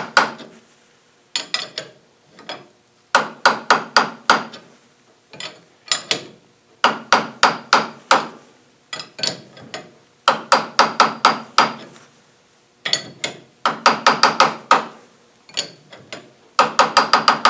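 Quick bursts of metal-on-metal hammer blows on a blind bearing puller, four to eight strikes at a time with short pauses between, each blow ringing. This is shock-loading the tensioned puller to free a bearing race from inside a gearbox primary shaft.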